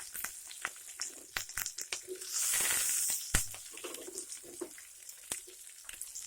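Hot oil popping and crackling in a pan of tempering with freshly added onion and curry leaves. About two and a half seconds in, a loud sizzling hiss rises and lasts about a second, then the scattered crackles go on.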